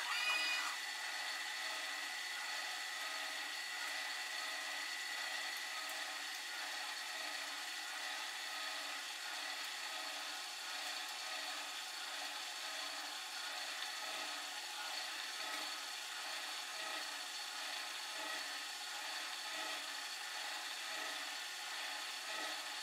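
A metalworking machine running steadily: a continuous hiss with a few faint steady tones and a weak, regular pulsing beneath.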